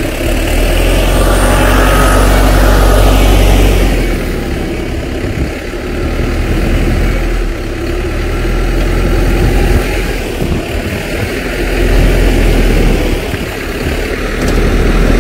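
Tracked snow groomer's diesel engine running close by: a steady low drone that swells louder a couple of seconds in, again about twelve seconds in, and near the end as the machine works.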